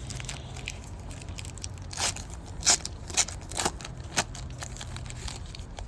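Crinkling plastic wrapper of a trading-card poly pack being handled, with a series of irregular sharp crackles.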